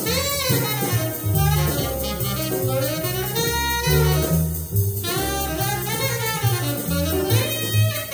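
Jazz recording: a tenor saxophone plays a flowing improvised solo line over a walking double bass and drums, the bass stepping to a new note about twice a second.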